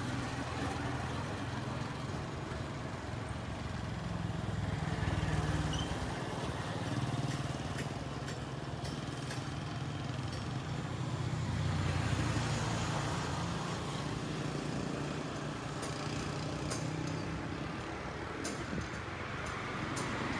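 Road traffic: motor vehicle engines running and passing, a low hum that swells and fades a few times, loudest about five and twelve seconds in.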